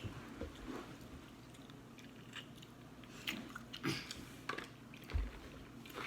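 Close chewing and eating sounds from a seafood boil of shrimp and crab legs, with scattered small clicks and crackles of shell and food being handled.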